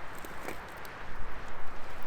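Wood fire burning with a steady hiss and scattered small crackles and pops, one a little louder about half a second in.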